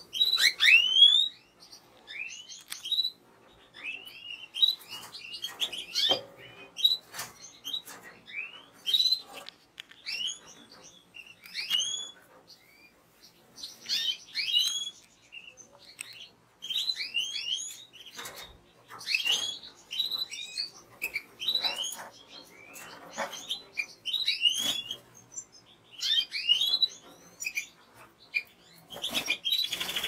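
European goldfinch twittering: a run of short, bright notes, each sliding downward, repeated in quick bursts with brief pauses throughout.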